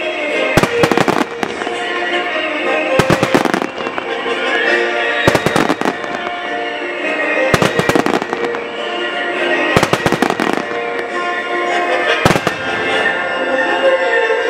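Starmine fireworks going off in quick clusters of bangs about every two seconds, six clusters in all, over music played on loudspeakers for a music-synchronised display.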